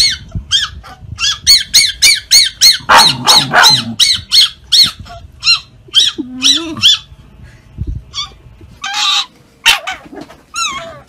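Fennec fox giving rapid, high-pitched arched yips and chirps in long runs, about four a second. A brief lower whining call comes about six and a half seconds in, and a few more of the high yips near the end.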